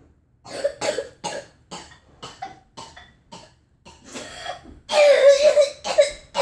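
A child's whooping-cough (pertussis) coughing fit: a run of about eight short, quick coughs, then louder, drawn-out pitched sounds near the end.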